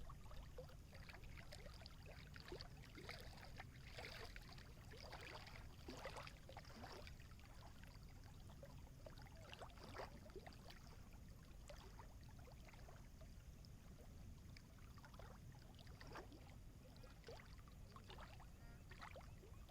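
Small water waves lapping and splashing, faint, with many short irregular splashes over a steady low rumble.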